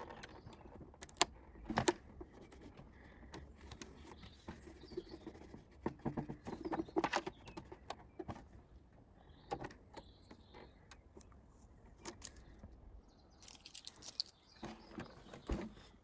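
Hands handling the plastic body of an RC pickup truck: scattered light clicks and taps with short bits of rustling, as a sticker is pressed onto it and the body is pressed down.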